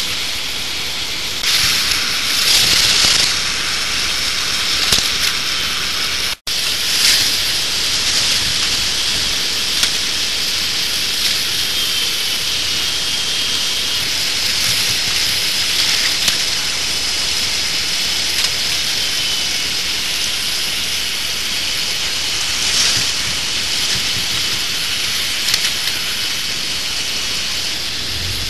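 K'NEX model roller coaster running: a steady crackling hiss from the train rolling on the plastic track and the lift chains, cutting out for an instant about six seconds in.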